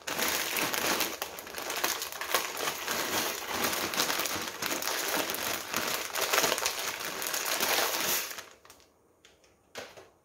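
Plastic pasta bag crinkling as dry short pasta is shaken out of it into a pot of water, a dense continuous rustle that stops about eight seconds in. A single short faint knock follows near the end.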